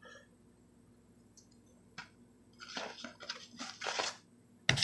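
Baseball cards in plastic holders being handled: a faint click about two seconds in, a stretch of light crinkly rustling, and a sharper click near the end.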